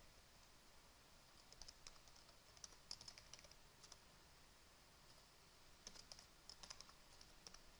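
Faint typing on a computer keyboard: two short runs of keystrokes, the first starting about a second and a half in, the second about six seconds in.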